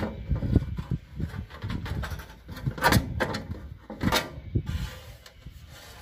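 A gas geyser's black plastic control-box cover being pulled off the unit and handled: scraping and rubbing with a few sharp knocks and clicks, the loudest about three and four seconds in.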